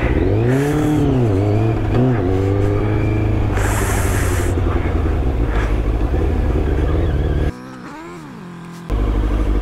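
Sport motorcycle engine revving as the bike rides off, its pitch rising and falling several times with throttle blips and gear changes. A short hiss comes about four seconds in, and the sound drops suddenly to a quieter stretch for about a second near the end.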